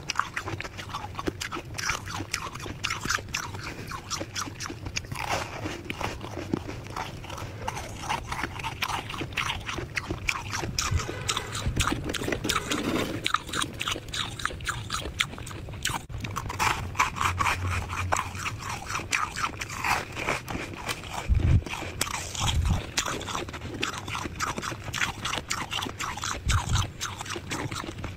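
Packed freezer frost being bitten and chewed: a steady run of crisp crunching crackles, with a few dull low thumps in the second half.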